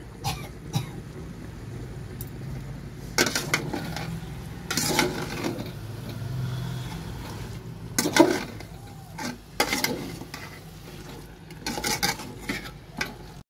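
A steel ladle scraping and clattering against an aluminium cooker pot as chicken curry is stirred, in four short bursts, the loudest about eight seconds in, over a steady low hum.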